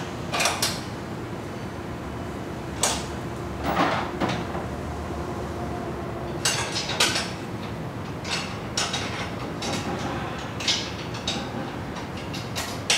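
Metal clinks and knocks of stainless exhaust parts and bolt hardware being handled and fitted by hand: about a dozen separate sharp taps and clunks, irregularly spaced, over a steady background hiss.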